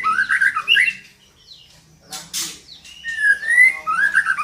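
Female white-rumped shama (murai batu) calling: a quick phrase of gliding whistled notes, a harsh raspy note about two seconds in, then another whistled phrase near the end. This is the female's call that draws a male shama into singing.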